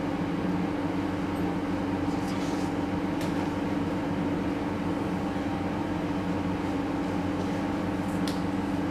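A steady mechanical hum with a pitched drone runs throughout. A few faint rustles and light knocks come as a man is rolled onto his side on the floor, about two to three seconds in and again near the end.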